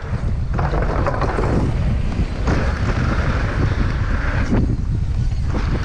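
Wind buffeting the camera microphone and a downhill mountain bike's tyres rumbling over a dirt trail at speed, with a few knocks from the bike over the terrain.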